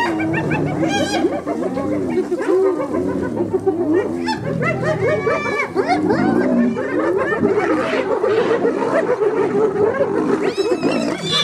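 Spotted hyenas mobbing lions at a kill: many high, wavering calls overlapping without a break, with deeper growls from the lions beneath.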